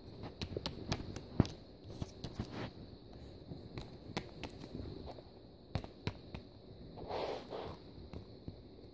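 Light taps and clicks of small plastic toy figurines being hopped and set down on carpet and cardboard, with soft handling rustle, irregular throughout. A brief muffled murmur about seven seconds in.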